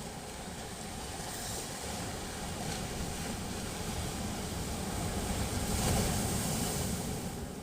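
Sea surf: a steady wash of waves, with one wave swelling and breaking about six seconds in, then easing off.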